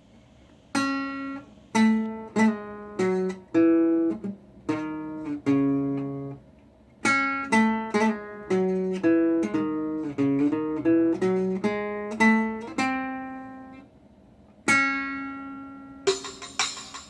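Solo plucked string instrument playing a slow melody, single notes ringing and fading with a few quick runs and short pauses. About a second before the end a jingling frame drum or tambourine comes in.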